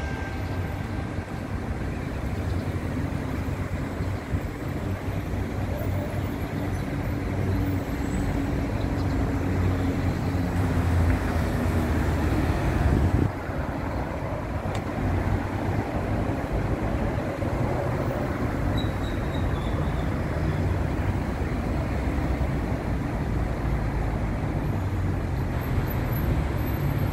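Steady road traffic from a street of cars and buses, swelling louder around ten to thirteen seconds in, then dropping back.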